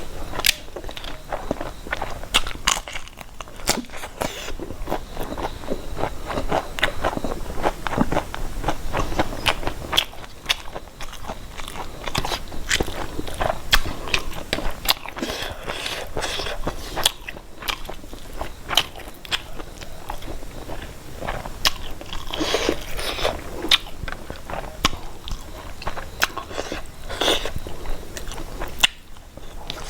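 Close-miked eating of mushroom and fish curry: steady chewing and biting, a dense, irregular run of small clicks and crunches.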